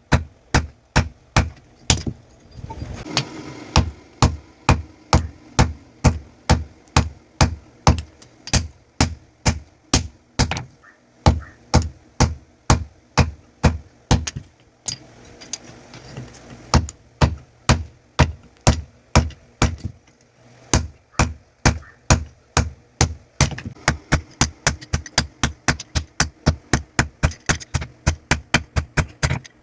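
Hammer blows ringing on steel at an anvil as an axe head is forged: a steady run of sharp strikes, about two a second, quickening to about three a second near the end, with two short pauses.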